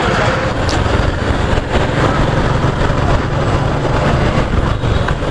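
Suzuki Gixxer motorcycle under way: a steady engine drone beneath loud rushing wind noise on the riding camera's microphone.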